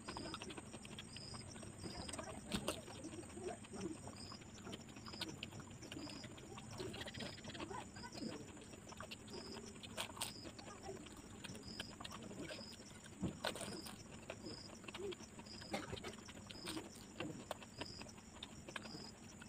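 Close-miked eating of panipuri: crisp puri shells crunching and wet chewing, with irregular sharp clicks and mouth smacks.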